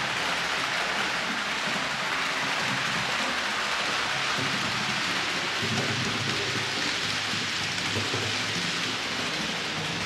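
H0-scale model train, an EU44 electric locomotive model hauling coaches, running on layout track: a steady rolling hiss of wheels and motor whir over a low, wavering rumble.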